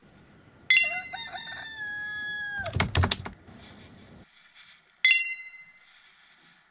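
A rooster crowing once, a long pitched call that holds and then falls away at the end, followed by a short, loud noisy burst. About five seconds in there is a sharp ringing tone that fades over about a second.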